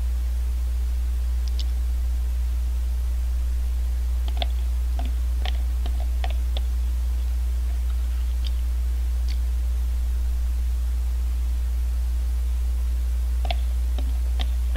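Scattered light clicks of a spoon against a thin clear plastic bingsu cup, coming in clusters a few seconds in and again near the end, over a steady low hum.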